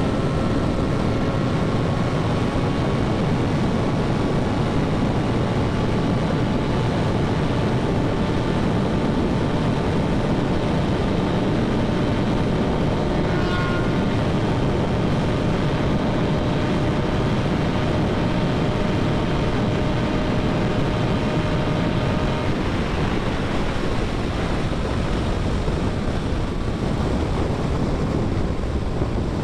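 Triumph Street Triple 675's inline three-cylinder engine at full throttle above 200 km/h, its note climbing slowly under heavy wind rush. About 22 seconds in, the engine note falls away and the wind noise stays as the bike slows.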